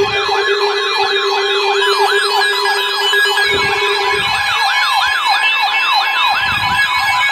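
Electronic emergency alert alarms sounding for a severe thunderstorm warning: a rapid yelping siren sweep, about three rises and falls a second, layered over steady alert tones. A steady lower tone drops out about four seconds in, and a few low thumps come through.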